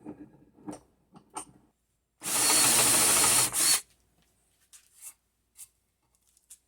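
Power drill turning a Forstner bit into a wooden board, boring a countersink for a bolt head and washer: a few light knocks, then one steady run of about a second and a half, followed by a brief second burst.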